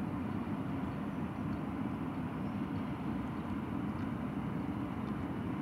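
Engine of a small cabin cruiser running steadily as the boat cruises slowly, a low, even drone.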